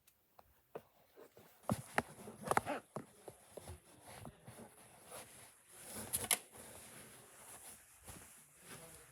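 Faint, irregular clicks, taps and knocks, with a cluster of louder knocks about two seconds in and another pair about six seconds in.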